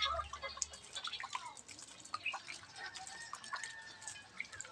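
Faint, irregular dripping and light splashing of water as a pet crow bathes.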